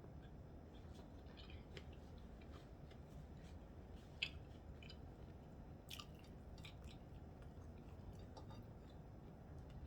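Faint chewing and mouth sounds of a person eating, with small scattered clicks and one sharper click about four seconds in.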